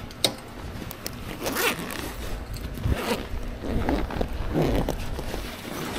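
A zipper on a motorcycle tank bag being worked open in several short zipping strokes, after a sharp click just at the start.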